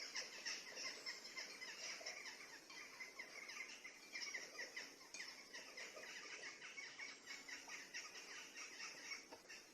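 A flock of small songbirds chirping and twittering together: a dense, faint chorus of many short, high, falling notes that stops near the end.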